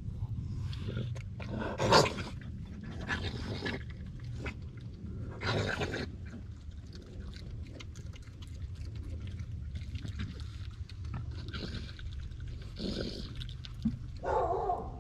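Raccoon eating a wet mash of potatoes and asparagus from a glass dish: irregular snuffling and smacking, with a few louder sounds, the loudest about two seconds in, over a steady low hum.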